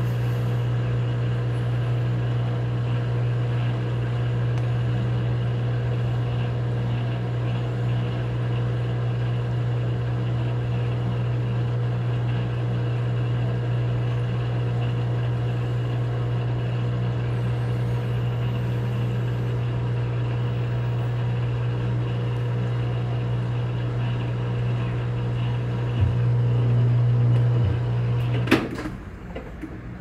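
Panasonic NA-F140B6W top-loading washing machine on a faulty spin cycle, giving a steady loud low hum. Near the end a click, the hum grows louder for a couple of seconds, then stops with a knock.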